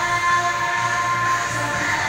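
Electronic dance music playing for a dance routine, with sustained synth-like tones over a continuous low bass.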